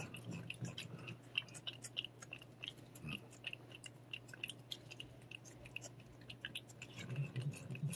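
A cat licking and lapping a paste treat from a squeeze tube: faint, quick, irregular wet clicks and smacks of the tongue and mouth.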